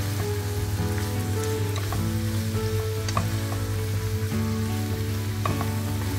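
Sliced onion, green beans and red pepper sizzling as they stir-fry in a nonstick frying pan, turned with a wooden spatula that clicks against the pan now and then.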